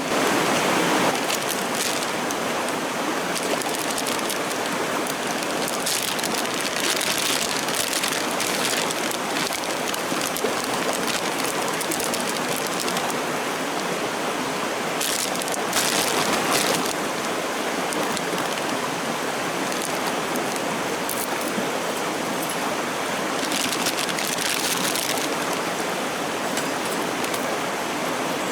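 A clear mountain stream rushing steadily over its bed, with a few brief louder stretches.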